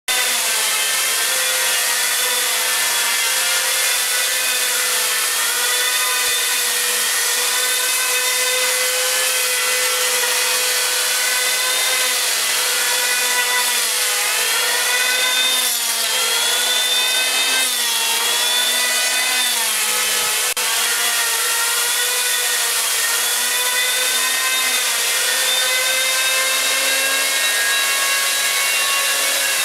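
Corded handheld power carving tools, angle-grinder-type, cutting into log wood. The motor whine keeps dipping and recovering in pitch as the cutters bite and ease off, over a steady hiss of cutting.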